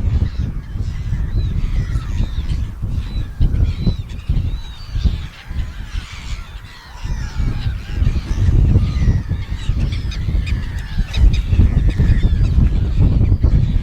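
Many gulls calling over one another, short rising and falling squawks that never stop, over a heavy, uneven low rumble.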